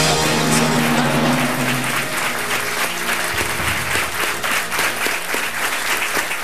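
Studio audience applauding a correct answer on a TV quiz show. Music held over from the correct-answer moment fades out about two seconds in.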